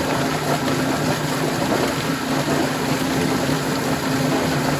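Yardbird drum chicken plucker running steadily with a broiler tumbling inside: an electric motor's steady hum under the rushing whir of the spinning drum and its rubber fingers.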